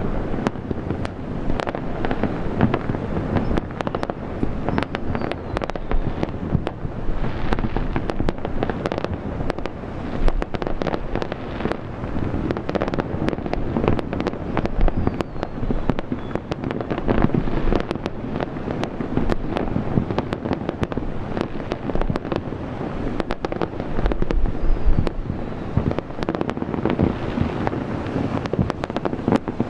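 Aerial fireworks display: many shells bursting in quick succession, sharp cracks over a continuous low rumble of overlapping explosions.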